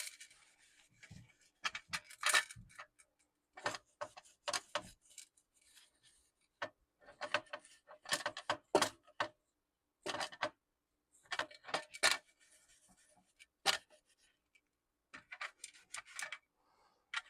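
Handling and rubbing a small disassembled laptop part to clean it: irregular clicks, taps and short scraping strokes in clusters, with brief pauses between.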